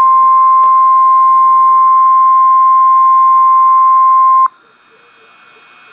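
NOAA Weather Radio warning alert tone: a single loud, steady beep near 1 kHz (the 1050 Hz warning alarm) that heads a severe thunderstorm warning. It cuts off sharply about four and a half seconds in, leaving faint radio hiss.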